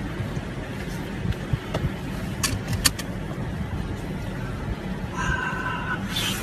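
Steady car-cabin hum with a few sharp taps and clicks as a capuchin monkey's hands hit the dashboard buttons and touchscreen. About five seconds in comes a short steady tone lasting under a second.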